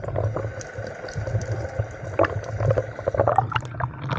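Dive boat's engine running steadily with a low hum, with scattered knocks and clatter over it.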